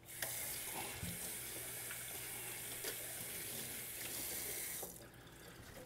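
Kitchen faucet running into the sink as hands are rinsed under the stream. The water comes on at the start and is shut off about five seconds in.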